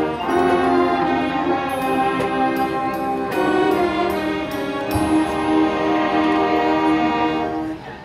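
High school marching band playing loud sustained brass chords over percussion, with drum and cymbal hits about three and five seconds in. The chord cuts off together just before the end.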